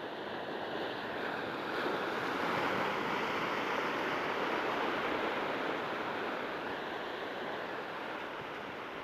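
Ocean surf washing in over shoreline rocks, a wave surging up about two seconds in and slowly easing off.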